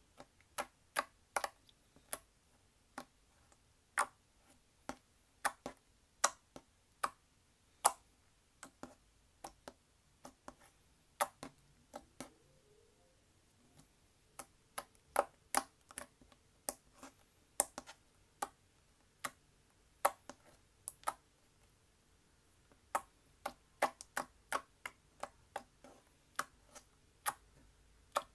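Slime being pressed and poked by hand, giving sharp, irregular pops and clicks, one to three a second, with a couple of short pauses.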